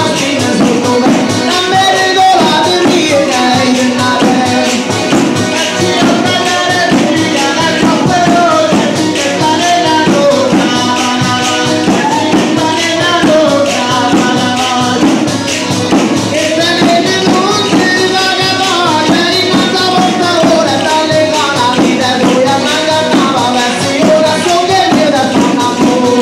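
Live folk dance music with a tambourine keeping a fast, steady beat under a melody line.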